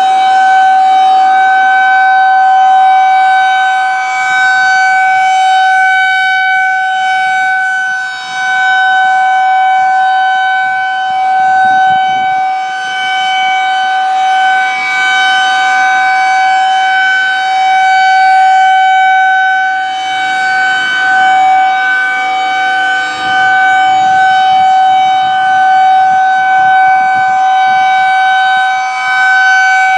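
Federal Signal 2001-130 rotating outdoor warning siren sounding a steady alert: one held, unwavering pitch that swells and fades every few seconds as the turning horn sweeps toward and away.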